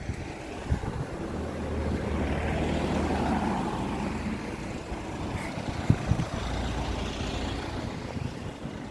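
Sea waves washing up and drawing back over a pebble beach: a rushing wash that swells to a peak about three seconds in, eases, then swells again with another wave, with a few sharp clicks of stones knocking together.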